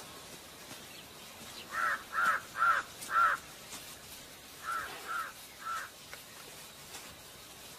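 Crow cawing: four loud calls in quick succession, then three quieter ones.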